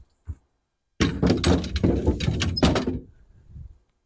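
Tent gear being handled: a short knock, then about two seconds of dense clattering and rustling, with many sharp knocks, that dies away to a few faint sounds.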